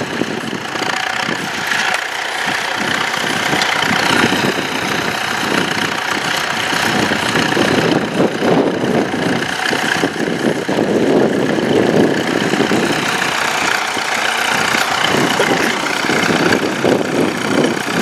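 1939 Allis-Chalmers Model U tractor's four-cylinder engine running steadily under load, pulling a trailed plough.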